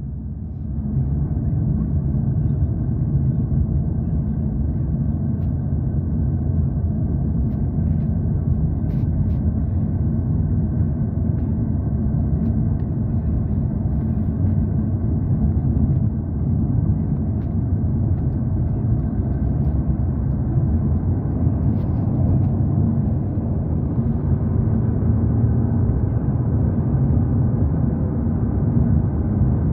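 Steady road and engine noise heard from inside the cabin of a moving car: a continuous low rumble with a faint steady hum.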